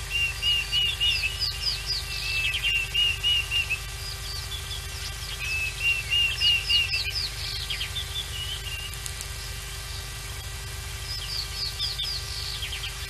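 Wild bird song: three phrases of quick, high whistled notes, each a short run of level notes followed by a run of falling notes. A steady low hum runs underneath.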